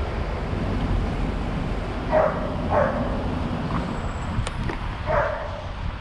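A dog barking three times, twice in quick succession and once more a few seconds later, over a steady rumble of wind on the microphone, with a sharp click in between.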